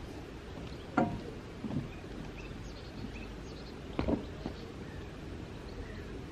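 Outdoor canal-side ambience with faint birds chirping, broken by two sharp knocks on the wooden lock gate and its walkway, about a second in and about four seconds in, with a softer knock between them as someone crosses the gate.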